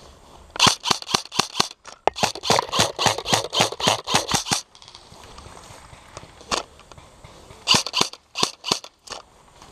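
M4-style airsoft rifle firing close by in rapid shots, about six a second, for roughly four seconds with one short break. Then comes a single shot, and a last short burst of about five near the end.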